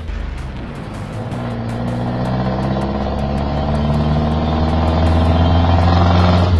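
Jeepney engine running, heard from inside the passenger cabin: a steady low drone that grows gradually louder.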